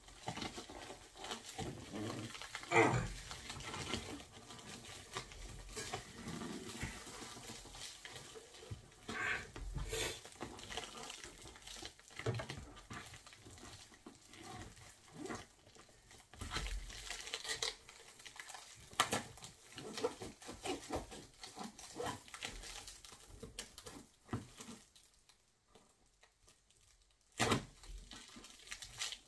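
A blunt pocket knife sawing and scraping at plastic wrap and packing tape on a cardboard box, with irregular scratches, crinkles and small knocks. There is a brief lull a few seconds before the end.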